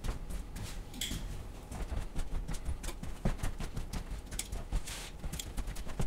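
Footsteps on a bare floor, an uneven run of short knocks and thumps as a person walks.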